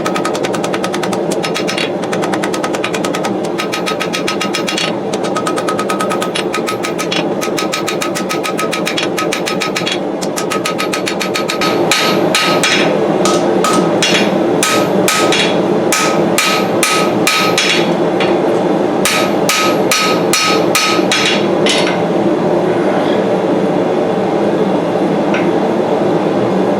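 Hand hammer striking a hot steel knife blade on an anvil in quick runs of several blows a second, each blow ringing, with short pauses between runs; the hammering stops near the end. Under it the gas forge's burner runs with a steady roar.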